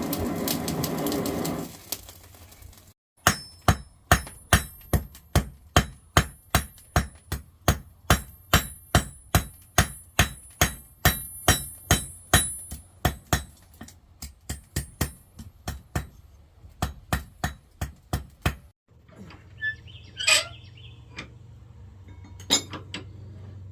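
Blacksmith's hammer striking hot iron on an anvil: a long run of ringing blows, two or three a second, with a brief pause about halfway, then a few scattered taps near the end.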